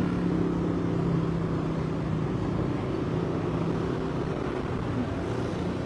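A motor vehicle engine running steadily, a low even hum.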